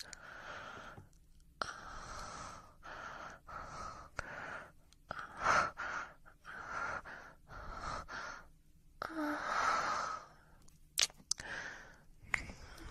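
A person breathing heavily: a string of loud, breathy exhales and sighs, each about a second long, with short pauses between them and a few sharp clicks near the end.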